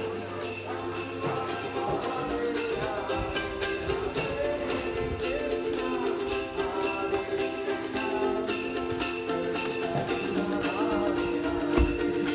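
Background music: a small metal bell or cymbal struck about twice a second over steady held notes.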